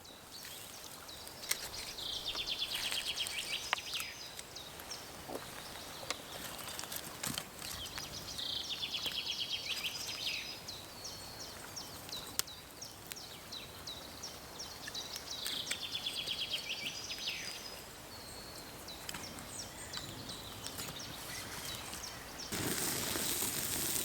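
A songbird singing the same short, fast trilled phrase three times, about every six to seven seconds, over a faint outdoor background with scattered small clicks. Near the end a louder steady hiss starts.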